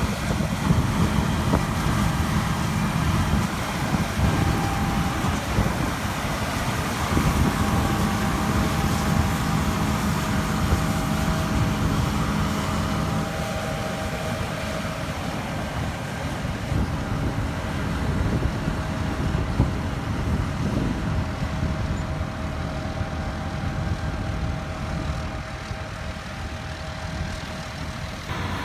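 John Deere S-series combine running while harvesting wheat: a steady engine and machine drone, heavier in the low end for the first half.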